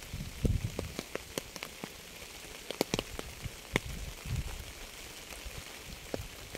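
Rain falling: a steady hiss with sharp, irregular drops tapping on a surface close by, and a few short low thuds.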